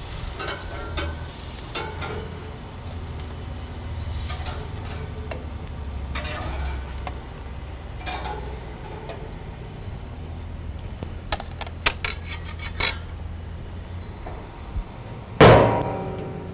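Metal spatula scraping and clicking on gas-grill grates as grilled yellow squash pieces are lifted off, with a faint sizzle from the grill. Near the end there is one loud, ringing clink.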